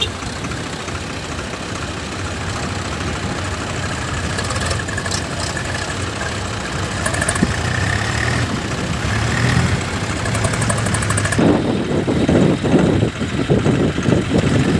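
Swaraj tractor diesel engine running steadily. About eleven seconds in, the sound turns louder, rougher and uneven.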